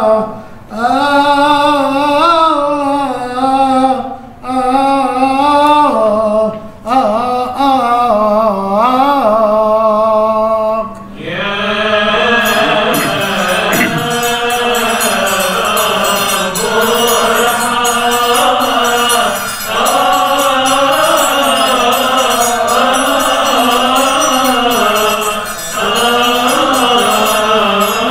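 A Coptic monk's solo voice chanting a liturgical melody in long, wavering melismatic phrases with short breaths between them; about eleven seconds in, a group of male voices takes up a steady chanted response, continuing to the end.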